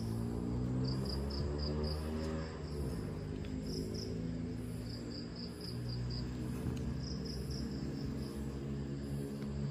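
Cat purring as a low continuous rumble whose pitch wavers, with crickets chirping in short, quick trills behind it.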